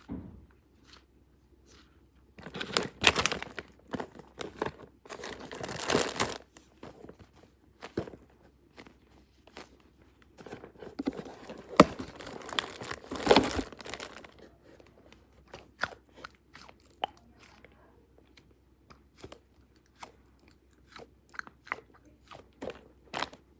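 Crunching and crackling from something being squeezed or handled close to the microphone, in irregular bursts of a second or two with scattered sharp clicks between them.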